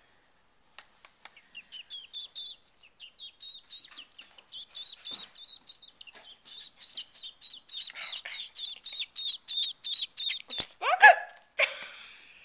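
Robin nestling begging while being hand-fed: short, high chirps about three a second that grow louder and quicker. Near the end, a loud, brief sound and a burst of noise cut across the calls.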